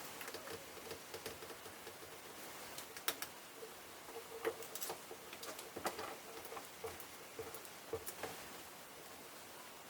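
Irregular small clicks and taps of hard parts being handled, a few sharper ones among them, as a replacement laptop LCD panel is set and aligned in its mounting brackets.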